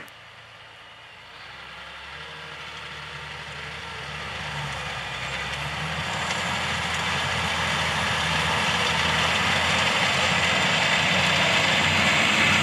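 John Deere 7R 310 tractor's six-cylinder diesel engine running steadily as it works a disc harrow across the field, growing steadily louder as it approaches and passes close by near the end.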